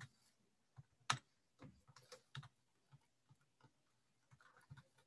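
Faint, scattered keystrokes on a computer keyboard: a handful of separate clicks, the sharpest about a second in and a few close together around two seconds.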